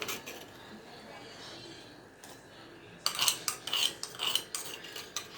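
Metal spoon clinking and scraping against a steel kitchen vessel as spices are spooned out and added to the pot: a couple of taps at the start, then a quick run of clinks and scrapes about three seconds in, over a faint steady hiss.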